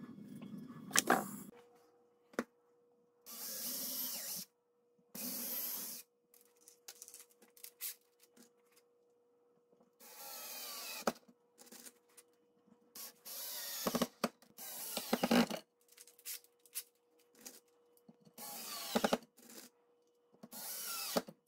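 Yellow-and-black DeWalt-style drill boring into a pine board in about seven short runs, each a second or less, with silent gaps between them.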